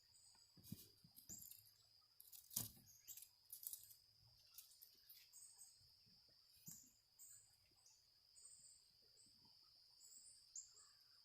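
Faint, quiet room sound: a steady high-pitched tone runs underneath, with scattered short high chirps from small pet birds and a few light knocks, the sharpest about two and a half seconds in.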